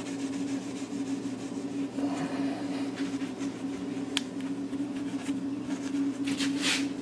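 Fine steel wool rubbing over a chrome wheel's spokes, with a few short scratchy strokes near the end and a sharp click about four seconds in, over a steady low machine hum.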